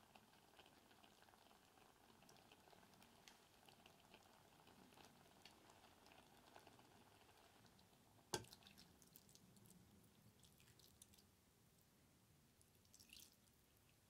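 Vegetables sizzling faintly in an iron pot over charcoal, with many small crackles, and one sharp knock about eight seconds in. Near the end, the soaking liquid from kombu and dried shiitake starts to trickle into the pot.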